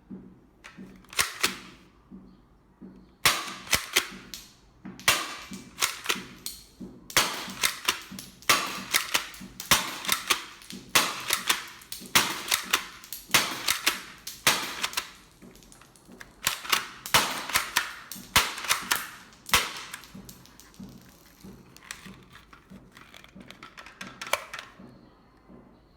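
Toy shotgun being worked and fired: sharp plastic clacks and snaps in quick runs of several a second, thinning out near the end.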